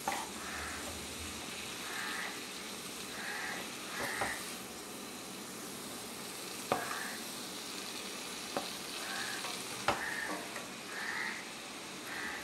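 Chopped cluster beans with onion and chillies sizzling in a kadai as a spatula stirs them, scraping over the pan about once a second. A few sharp knocks of the spatula against the pan come in the middle.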